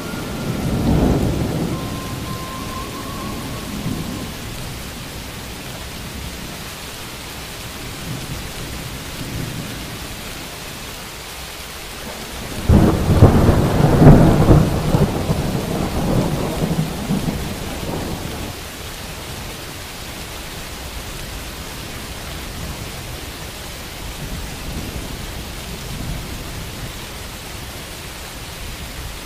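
Steady rain in a thunderstorm. There is a low roll of thunder about a second in. A little before halfway comes a sudden loud thunderclap that rumbles on for about five seconds before fading back into the rain.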